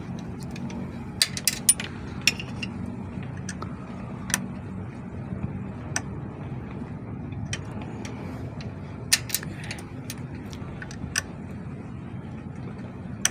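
Scattered metal clicks and taps from a 4 mm Allen key turning the pressure-adjusting screw on a truck air dryer's governor, turned clockwise to raise the cut-out pressure from 8 to 9 bar. A steady low hum runs underneath.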